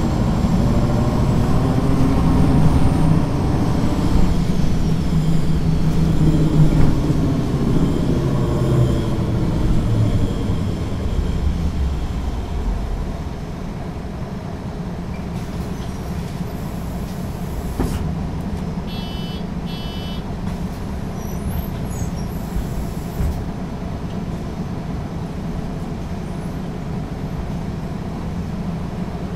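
MAN NG 313 articulated bus's diesel engine working hard, its pitch shifting, then falling back at about 12 seconds to a quieter steady run. Two short high beeps come about two-thirds of the way through.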